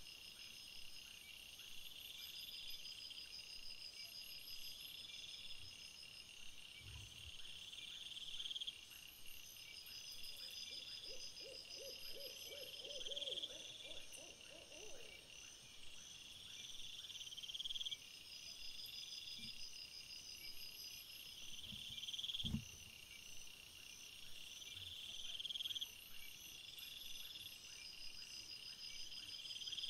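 A steady night chorus of crickets and other insects, with high trills that swell and cut off about every two seconds. About halfway through comes a short rapid run of low pulsed calls, and a single thump sounds about two-thirds of the way in.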